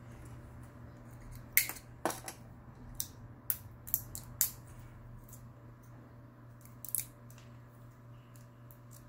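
Irregular sharp clicks and small taps from hands handling a spool of sewing thread and pulling thread from it, most in the first half with one more about seven seconds in, over a steady low hum.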